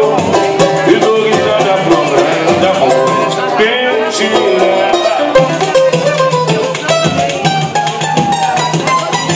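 Live acoustic band music: an acoustic guitar strummed with a singing voice and a hand drum keeping a steady beat.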